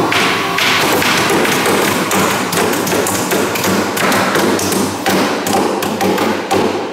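Dense, irregular knocking and thumping, many sharp strikes overlapping, over a steady low hum.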